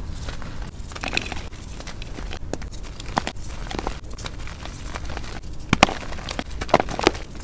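Hands squeezing and crumbling soft gym chalk reforms (re-pressed blocks of chalk powder), giving irregular soft crunches and crumbles. There are a few sharper cracks near the end, the loudest about six seconds in.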